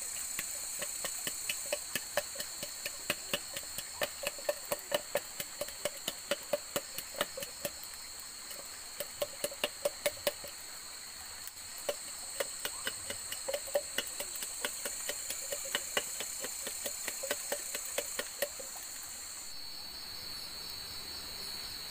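Wooden pestle pounding chili, salt and shrimp paste for sambal in a tall cylindrical mortar: quick knocks about three a second, with a couple of short pauses, stopping near the end. Night insects trill steadily.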